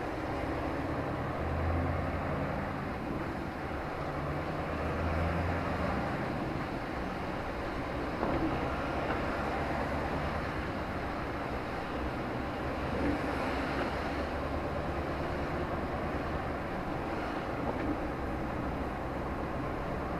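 A car driving along a road, heard from inside the car: steady engine hum and road noise. The low engine drone is stronger for the first few seconds.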